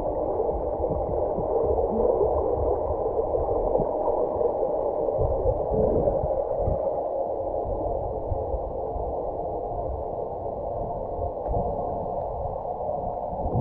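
Muffled underwater noise in a swimming pool, as picked up by a submerged camera: a steady dull hiss with irregular low bumps and thumps.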